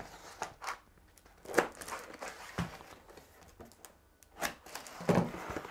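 A knife slicing the packing tape on a small cardboard box, with tape ripping and cardboard rustling in short, scattered strokes.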